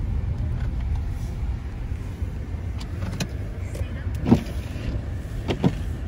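Steady low road rumble of a car driving, heard from inside the cabin. A few light clicks sound around three seconds in, and a short louder knock comes a little after four seconds.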